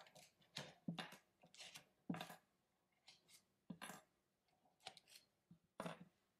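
Faint, irregular light taps and crinkles, about a dozen over a few seconds, as a parchment-lined metal loaf pan and its paper are handled on a wire cooling rack.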